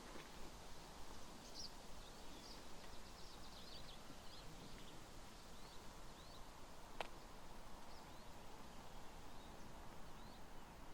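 Small birds chirping in short, high calls scattered throughout, over a steady outdoor background hiss, with a single sharp click about seven seconds in.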